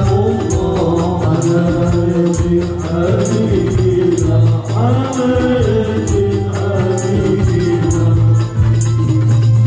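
Background music: a singing voice over a steady low bass and a regular percussion beat.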